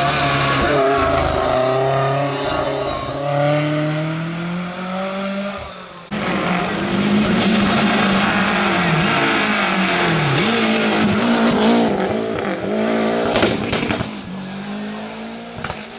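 Rally car engines revving hard, rising and falling in pitch through gear changes, with an abrupt switch to another car about six seconds in. A few sharp cracks come near the end.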